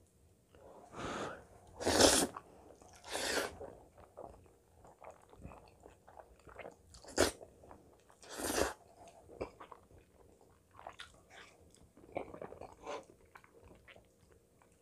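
A person eating curry-coated glass noodles: several short, loud slurps in the first few seconds and two more about seven and eight and a half seconds in, then quieter chewing and small mouth clicks.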